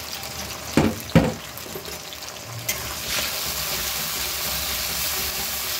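Two ringing metal clanks about a second in, then ground spice paste sizzling in hot oil in a metal kadai as it is stirred in with a spatula over fried potatoes; the sizzle grows louder from about three seconds and stays steady.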